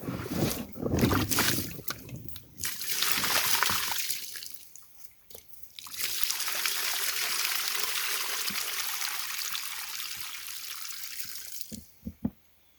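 Water sloshing and splashing as carrots are washed by hand in a bin of water. From about six seconds in, a steady trickle of water runs for about six seconds and fades.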